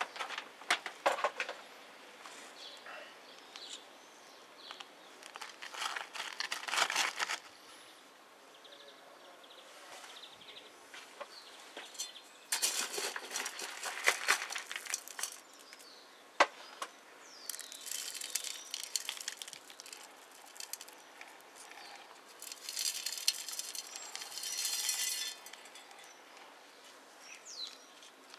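Gritty granular bonsai soil rattling and scraping in a plastic pot as it is handled and pressed around the roots. The sound comes in several short bursts with quiet gaps between.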